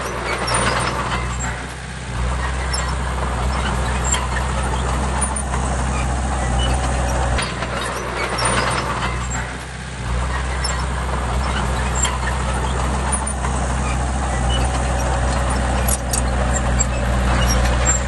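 Heavy construction machine's diesel engine running steadily. Its low note dips briefly about two seconds in, and again from about seven and a half to ten seconds. Bursts of higher clatter and hiss come around one second and nine seconds in.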